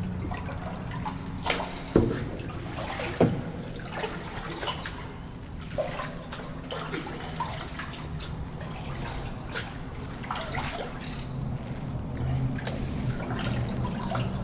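Paddle strokes from a kayak's cut-down oars: water splashing and dripping off the blades, echoing in a concrete culvert. A few sharp knocks fall in the first few seconds, over a low steady hum.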